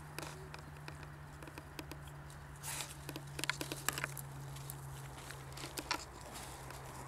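Crackling and rustling of dry brambles and dead undergrowth, with footsteps on frost-covered ground, in uneven clusters of sharp snaps that are busiest a few seconds in and again near the end. A faint steady low hum runs underneath.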